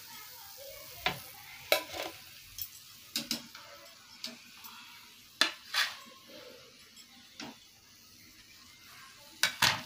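Hot oil sizzling steadily in a frying pan, broken by about a dozen sharp clinks and taps as a wire mesh skimmer lifts out fried doughnuts and knocks against the pan and plate.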